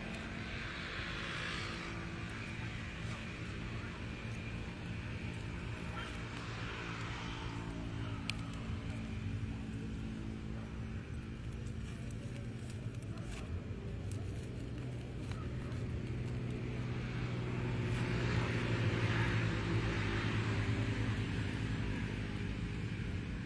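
Steady hum of motor traffic going by on a road, which swells for a few seconds near the end as a vehicle passes closer, with a few faint clicks.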